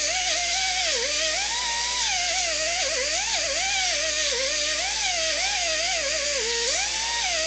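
Electric power drill running continuously, its motor whine rising and falling in pitch as the load on the bit changes.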